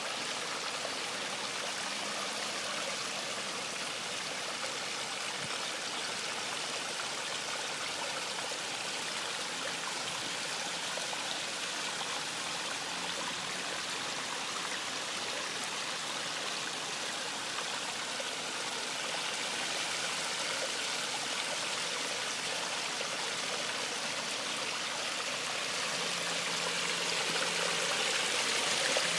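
Small pondless waterfall running: water spilling over rocks and splashing into a gravel basin, a steady trickling and splashing.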